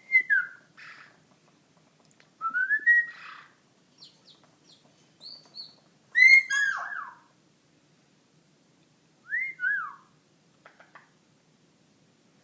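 Pet parrot whistling: a series of short whistled calls that glide up and down in pitch, separated by quiet gaps, the loudest about six seconds in, with a few faint higher chirps between them.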